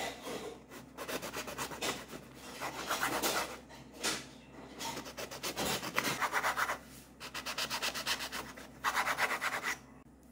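Chef's knife sawing through a crusty ciabatta loaf on a wooden cutting board, one slice after another. It is heard as a rapid rasping of back-and-forth strokes in about seven bursts, each about a second long.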